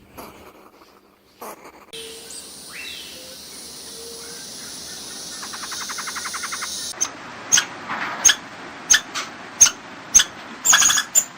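Bird calls: whistled, gliding notes, then a series of short, sharp, high calls repeated about twice a second, growing louder near the end.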